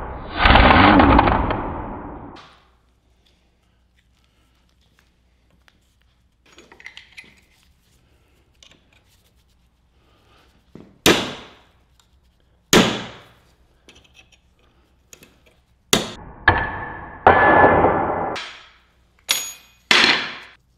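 An Earthquake power tool runs in a burst of about two seconds against the cast-iron body of a Wilton C-0 bench vise. After a pause, a hammer drives a chisel against the vise about six times: sharp metal clanks, some of them ringing, with a longer metallic sound of about two seconds partway through.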